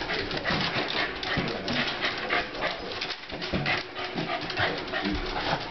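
Pembroke Welsh Corgi panting rapidly while it chases and noses a rubber balloon on a tile floor, with quick short scuffs mixed in.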